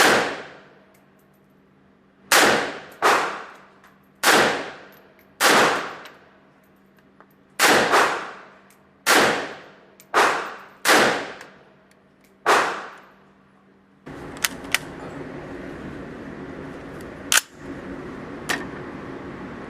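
AK-47 rifle (7.62×39mm) fired single shots, about eleven, spaced from under half a second to over a second apart, each ringing out briefly after the crack. After about 14 seconds the firing stops and a steady hum takes over, broken by a few sharp cracks.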